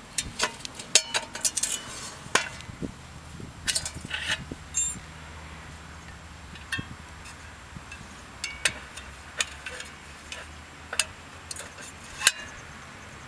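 Small metal parts of a lawn edger's blade assembly clinking and clicking as they are handled and set down on paving stones during a blade change: a quick run of clicks in the first few seconds, then single clicks every second or two.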